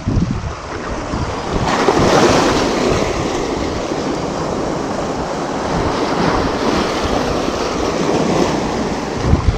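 Small waves washing and breaking over shoreline rocks, with a louder surge of surf about two seconds in. Wind buffets the microphone in low gusts, most at the start and near the end.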